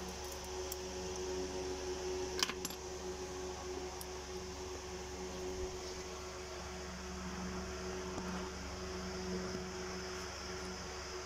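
Steady mechanical hum, like a fan or air conditioner running, with one sharp click about two and a half seconds in.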